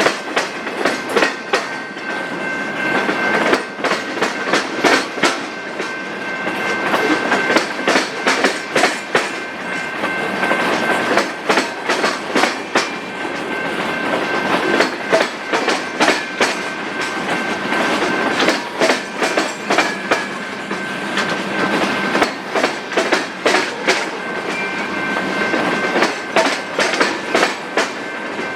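Freight train rolling past, its wheels clicking over rail joints in a constant clickety-clack, with a steady high-pitched tone held underneath.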